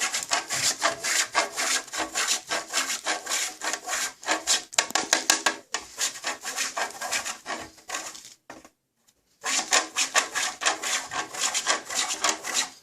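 Dark chocolate being grated on a fine hand grater: quick, repeated scraping strokes, with a pause of about a second some eight seconds in.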